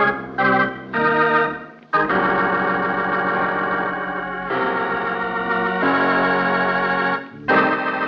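Organ music closing a scene of a radio drama: a few short chords in the first two seconds, then long held chords that shift a few times, with a brief break near the end before a louder chord.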